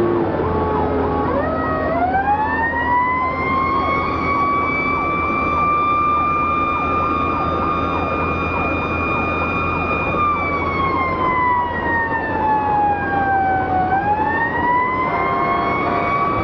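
Fire engine's siren heard from the cab. It winds up about two seconds in, holds a steady wail, slides down slowly from about ten seconds in, then winds back up near the end. A steady engine drone runs underneath.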